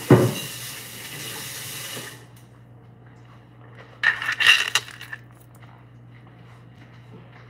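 Kitchen tap running in a steady hiss, with a sharp thump at the start, then shut off about two seconds in. Around four seconds in comes about a second of brisk rustling and scraping at a cutting board.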